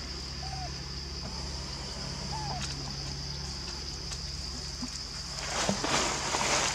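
Rustling and scrabbling of a young macaque scrambling through dry leaf litter and onto tree bark, starting about five seconds in and loudest near the end. Underneath runs a steady high-pitched hum, and two faint short chirps come early on, about two seconds apart.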